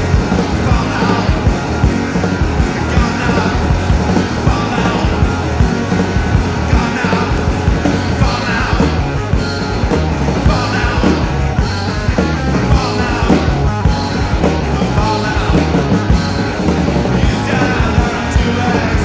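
Full-band rock music from an early-1980s record, playing loud and steady over a driving drum beat.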